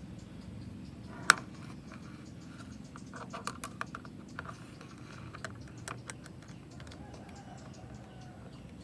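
Handling clicks from an analog multimeter and its test leads: one sharp click about a second in, then a scatter of light clicks and taps over a faint low hum.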